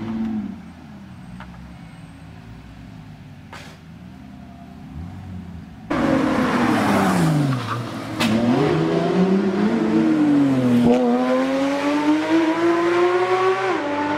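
Ferrari LaFerrari V12 revving hard. At first it is fainter, its note rising and falling. About six seconds in it becomes much louder with a hiss of tyre squeal and the pitch dips, then the note climbs steadily as the car accelerates.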